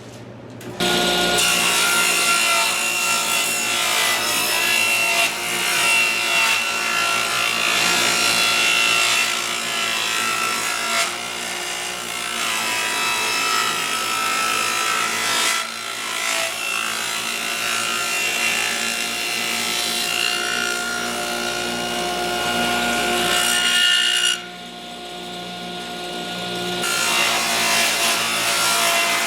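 Table saw running with its blade cutting a groove along a wooden board. The sound drops sharply about three-quarters of the way through as the cut ends and the saw runs free, then builds again near the end as the next pass starts.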